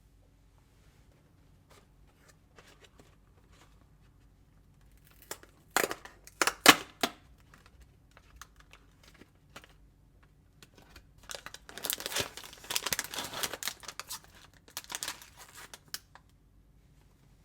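Packaging of a DIY sweets kit being torn open and handled: a few sharp rips about six seconds in, then several seconds of crinkling and rustling, with light handling ticks between.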